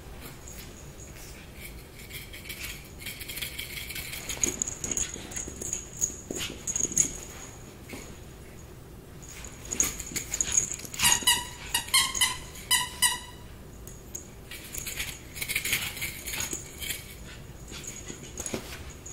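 Pug puppy playing with toys on a rug and in its pet bed: scattered scrabbling, rustling and bumping of paws and body. A quick run of about six high squeaks comes a little past the middle.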